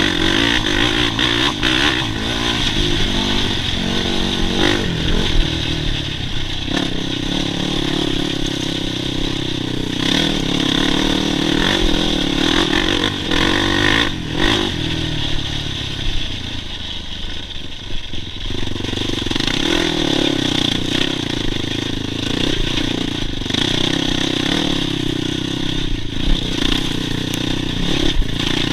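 Sport ATV engine running under throttle while the quad rides over a rough dirt trail, its note rising and falling, easing off for a few seconds past the middle and then picking up again. Scattered knocks and rattles from the machine over the bumps.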